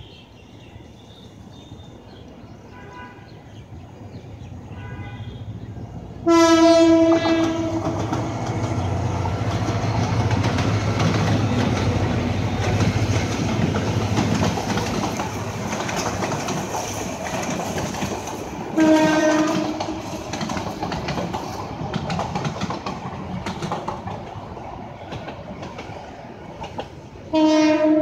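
GT18LA2 diesel-electric locomotive hauling a freight train past, the rumble of its engine and wagons swelling in over the first few seconds and staying loud through the middle. Its horn sounds three times: a long blast about six seconds in, a shorter one about nineteen seconds in, and another near the end.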